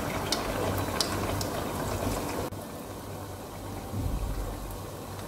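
Uzhunnu vadas (urad dal fritters) sizzling as they deep-fry in hot oil: a steady bubbling hiss with small crackles. About two and a half seconds in, the sizzle drops suddenly to a quieter level.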